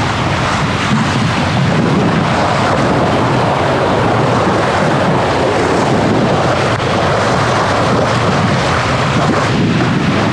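Steady, loud wind rushing over the microphone on the deck of a sailboat under sail, mixed with the rush of the bow wave along the hull as she moves fast through the water.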